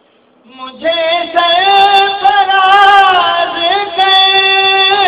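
A man's voice singing soz-o-salam, a Shia elegy chanted without instruments: after a short pause it comes in about a second in and holds long, wavering, high notes.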